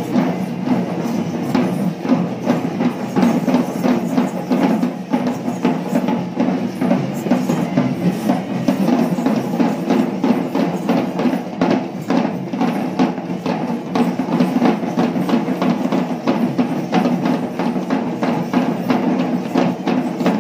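Traditional Sri Lankan Kandyan drums beating a fast, dense rhythm of sharp strikes over a steady low drone, accompanying Kandyan dancers.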